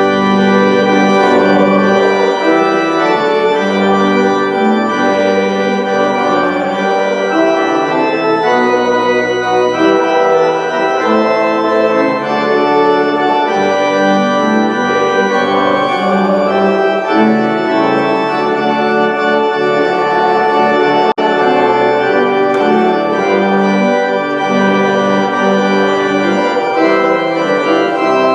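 Organ music: sustained chords held and changing every second or so, loud and continuous.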